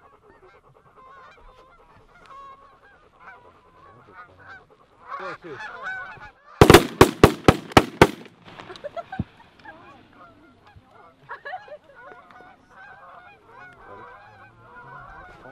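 A flock of Canada geese honking, the calls thickening as they come in, then a rapid volley of about seven shotgun shots in a second and a half about halfway through; the honking goes on after the shots.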